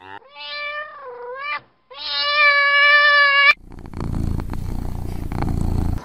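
Cat meowing: two long drawn-out meows, the first wavering in pitch and the second held steady and cut off abruptly. A low rough rumbling follows.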